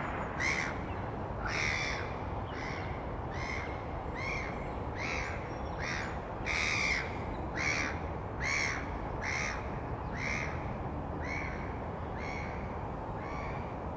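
Black-headed gulls giving short, harsh calls about once a second, the mobbing calls they direct at a perched grey heron. A steady low rumble of background noise lies underneath.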